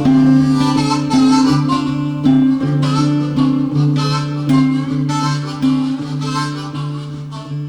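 Instrumental break of a country song: harmonica over acoustic guitar, fading slightly toward the end.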